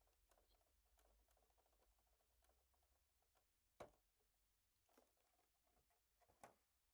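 Near silence: quiet room tone with a few faint, short clicks or taps, the clearest about four seconds in and two more near the end.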